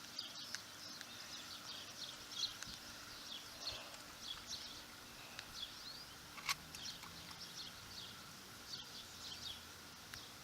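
Small birds chirping repeatedly in short, quick high notes over a quiet outdoor hiss, with one sharp click about six and a half seconds in.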